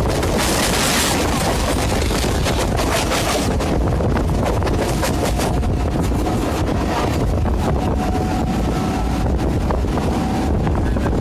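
Running noise inside a moving Bombardier EMU electric commuter train: a steady low rumble of wheels on track and wind, with the traction motor's faint whine showing through for a few seconds near the middle and end.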